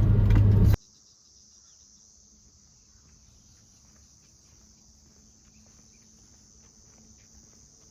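Car cabin road and engine noise cuts off abruptly under a second in, giving way to a faint, steady high-pitched chorus of crickets with a few faint ticks.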